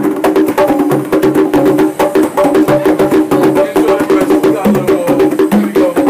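Fast, continuous percussion drumming: dense rapid strikes that ring at a few different pitches in a repeating groove.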